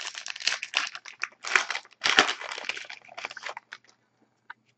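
Foil wrapper of a trading card pack crinkling and crackling as it is torn open and handled, in quick bunches of rustling that stop about three and a half seconds in.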